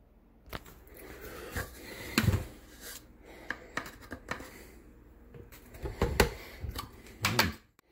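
A red plastic scoop clicking and scraping in a plastic tub of whey protein powder, and the powder tipped into a blender jar: scattered clicks and knocks, the loudest about two seconds in and again near the end.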